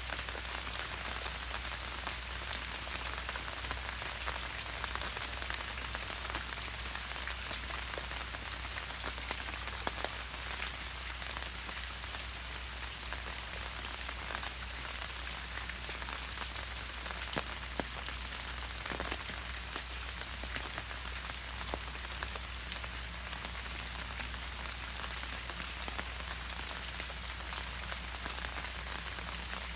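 Steady rain falling, an even hiss with many single drops ticking close by.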